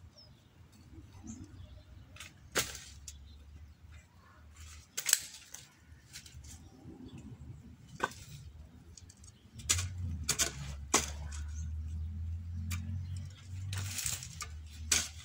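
A garden hoe striking and scraping stony soil, a sharp knock every few seconds, over a low rumble that grows louder in the second half.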